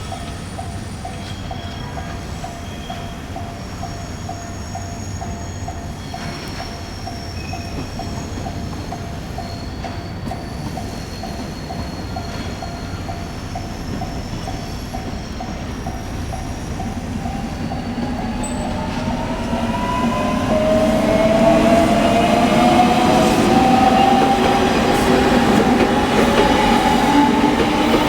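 Japanese level-crossing warning bell dinging in a rapid, steady rhythm. About two-thirds of the way in, a JR Kyushu limited-express electric train approaches: its motor whine rises in pitch and its running noise grows loud.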